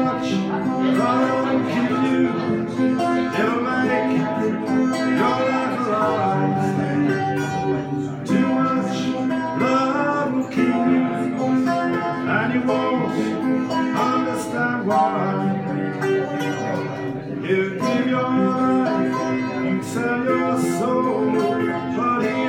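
Strummed twelve-string acoustic guitar with a man singing, played live.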